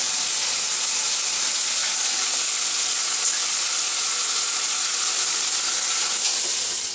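Handheld shower head spraying water at strong pressure, a steady loud hiss of water hitting the shower wall. It cuts off suddenly near the end as the shower is turned off at the mixer.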